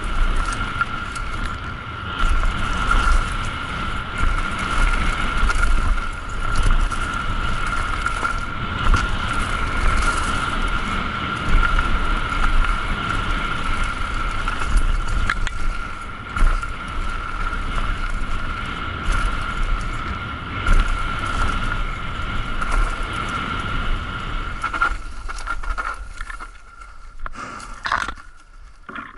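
Mountain bike running fast down a dirt trail: a continuous rough rumble and rattle of tyres and bike over the ground, with wind buffeting, and a steady high-pitched whine over it. The noise drops away about four seconds before the end as the bike slows, leaving a few sharp clicks and rattles.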